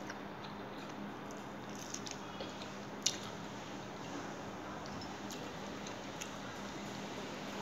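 Fingers mixing soft rice into runny dal on a plate, a faint wet squishing with a few light clicks and one sharper click about three seconds in.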